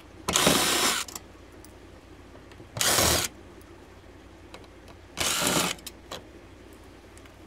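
Power drill backing out a mounting screw from a furnace's exterior cover, running in three short bursts of under a second each, about two and a half seconds apart.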